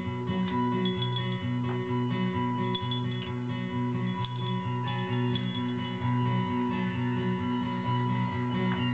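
Music: a plucked guitar-like instrument playing a repeating pattern of low notes, with higher plucked notes over it.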